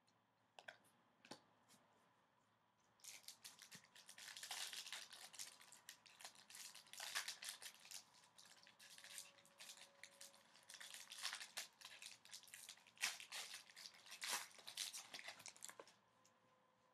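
Trading card pack wrapper of 2015-16 O-Pee-Chee Platinum hockey being torn open and crinkled. A couple of light clicks of cards being handled come first, then dense crackling and tearing from about three seconds in until near the end.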